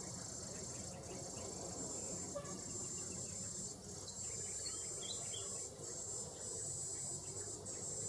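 Steady high-pitched insect chorus with brief dips every second or two, over a low background rumble.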